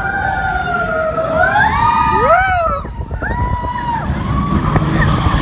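Roller coaster riders screaming and whooping in long cries that glide up and down in pitch. Under them runs the low rumble of the coaster train on its track.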